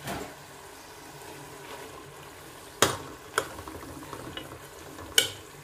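Chicken pieces sizzling in a tomato-and-chilli masala in a metal pot, with a metal spatula stirring and knocking against the pot a few times, sharpest about three and five seconds in.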